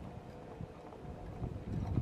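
Wind buffeting the microphone, an uneven low rumble that grows stronger near the end.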